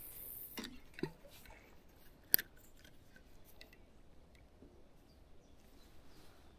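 A few small, sharp clicks and ticks, the sharpest a little over two seconds in, over a quiet background.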